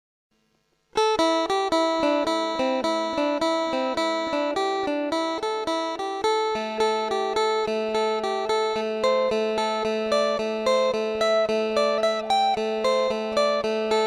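Thai phin (Isan lute) playing a quick, lively melody of rapidly plucked notes over a steady drone. It starts abruptly about a second in, after a short silence.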